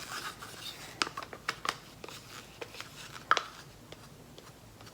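A few light clicks and taps of plastic paint cups being handled while paint is poured from one cup into another, with a small cluster of clicks and one louder tap later.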